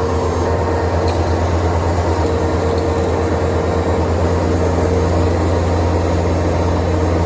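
Bobcat skid steer engine running steadily under work, with a low, even engine pulse and a steady higher whine over it.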